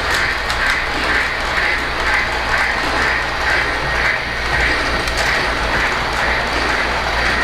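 O-gauge electric model train running on its track: a steady rolling noise with a soft rhythmic pulse about twice a second.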